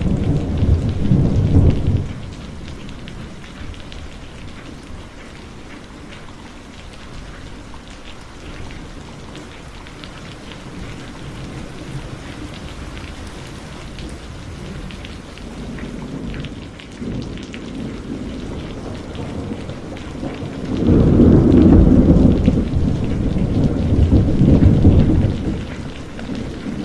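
Heavy rain pouring steadily, with rolls of thunder: a rumble dying away about two seconds in, a fainter one around the middle, and a long loud rumble in the last third.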